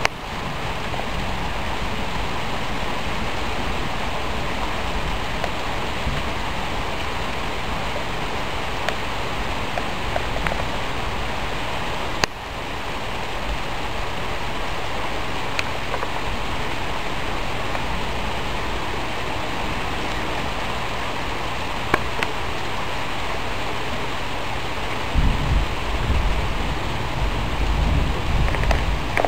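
Heavy rain falling steadily, a constant hiss, with a few faint ticks of drips and a low rumble in the last few seconds.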